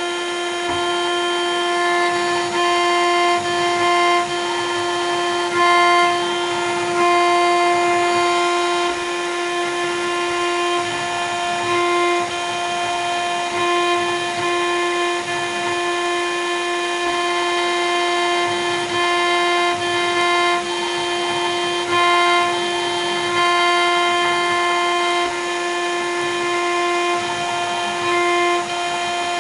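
1.5 kW CNC router spindle running at a steady high whine while its bit cuts into an acrylic cylinder, the sound briefly getting louder every few seconds.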